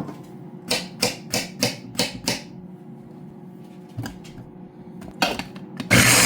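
A quick run of sharp clicks and taps, followed by a few more taps. Near the end, a loud steady rushing noise starts abruptly.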